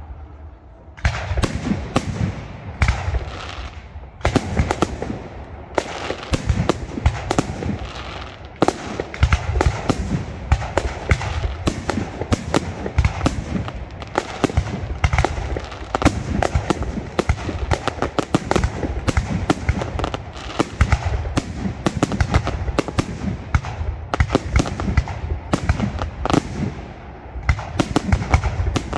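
Fireworks display: aerial shells launching and bursting in rapid succession, a dense run of bangs and crackles with short lulls about a second in and near four seconds.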